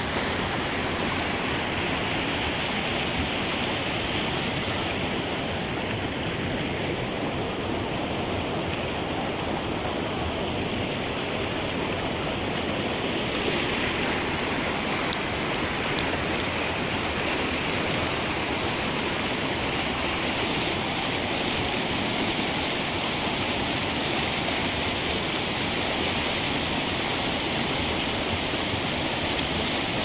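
Whitewater river rapids, water rushing over rocks and through standing waves, a steady, unbroken rush of water.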